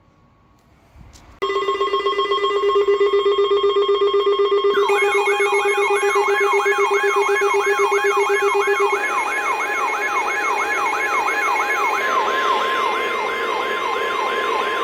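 Weather-radio emergency alert alarm tones: a steady buzzing tone with a higher steady tone over it starts about a second and a half in, and a few seconds later a siren-like warble joins, sweeping up about three times a second. The buzzing tone drops out about two-thirds of the way through while the warble and high tone keep going.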